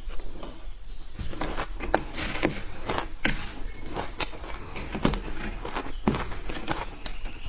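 Ice being bitten and crunched: sharp, irregular crunches, about two or three a second.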